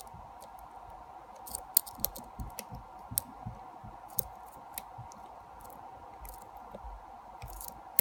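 Lock pick scraping and clicking irregularly against the pins and warding inside an ASSA Twin Combi lock cylinder while it is being picked, over a faint steady hum.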